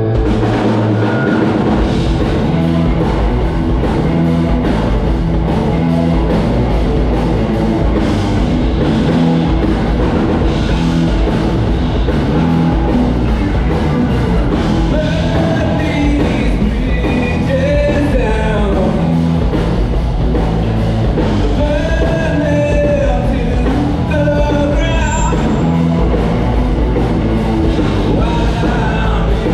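A live rock band playing loudly: drum kit, distorted electric guitars and bass, with a singer's voice coming through over the band in the second half.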